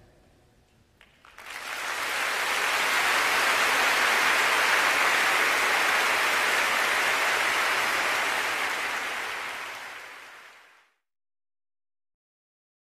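Concert-hall audience applauding, dense and even, starting after about a second of quiet and fading out near the end.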